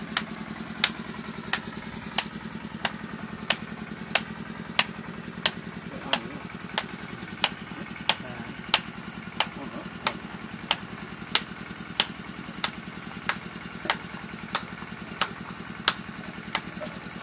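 A small engine running steadily, with sharp clicks at an even pace of about three every two seconds.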